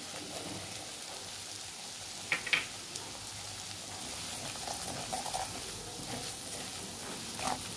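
Spice masala of onion paste and ground spices frying in hot oil in a metal kadhai: a steady sizzle while a steel spoon stirs it, with a few light clicks of the spoon against the pan about two and a half seconds in and again near the end.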